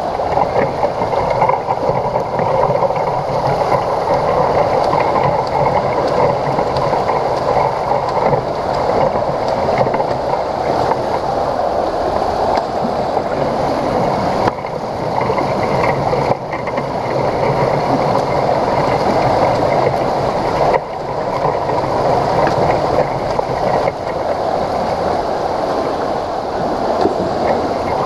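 Steady, muffled rushing and splashing of pool water stirred up by a swimmer's strokes, dipping briefly a few times.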